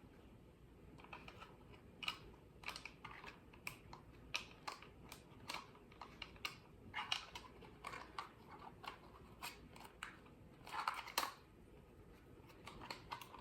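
Faint, scattered clicks and taps of plastic Hampton Bay solar garden lights being handled, with a small cluster of rustling clicks near the end of the second third.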